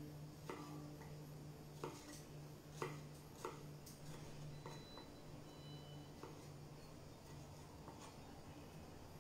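Knife cutting cherry tomatoes on a wooden chopping board: faint, irregular taps of the blade against the board, a couple of them louder in the first few seconds, over a steady low hum.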